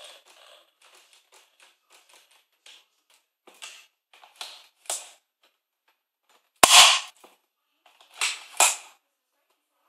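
Modified Nerf Rapidstrike blaster being worked. First comes a run of light clicks, about four a second. Then come several short, sharp shot-like bursts, the loudest about seven seconds in and two more close together near the end.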